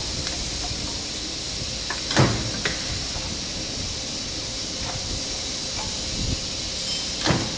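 CNC silicon steel shearing machine cutting transformer core lamination strip: two sharp clunks of the shear stroke about five seconds apart, with a few lighter clicks, over a steady hiss of workshop noise.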